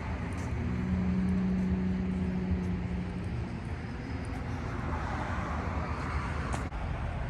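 Outdoor road traffic: a steady low rumble with a vehicle's engine hum for the first few seconds, then the rushing tyre noise of a car passing, growing louder and fading about five to six and a half seconds in.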